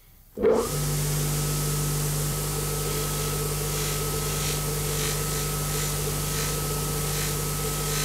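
Electric bench polishing machine switching on about half a second in and running at a steady hum, its buffing wheel spinning; a steel bearing ball is pressed against the wheel to polish it, with faint scratchy rubbing over the middle seconds.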